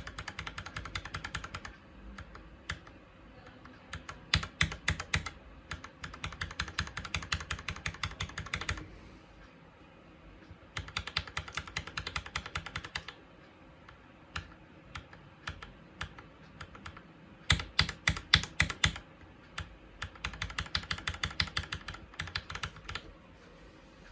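Typing on a mechanical keyboard fitted with Jwick Red linear switches, a high-pitched, clacky sound. Fast runs of keystrokes come in about six bursts of a few seconds each, with short pauses between.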